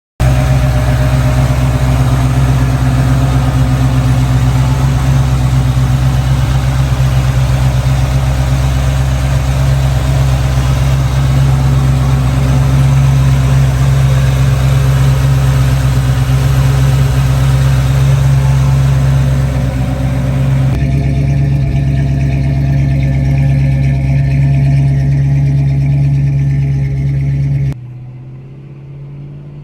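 Chevrolet 350 (5.7 L) V8 crate engine in a 1985 Chevrolet K10 pickup idling steadily and loudly. About 21 seconds in the sound turns duller, and near the end it drops to a quieter engine sound whose pitch rises as the truck pulls away.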